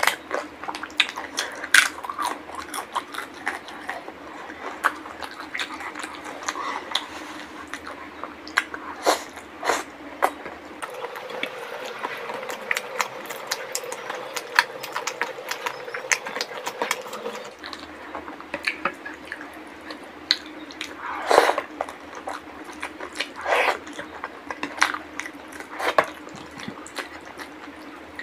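Close-miked eating: wet chewing and mouth smacks, with squelching as curry-soaked food is mixed and picked up by hand, in many short clicks and smacks.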